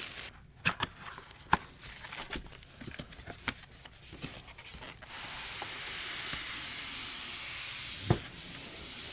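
Cardboard packaging being opened and handled: scattered taps and clicks, then a steady rubbing hiss for about three seconds from about five seconds in, ending with a sharp knock.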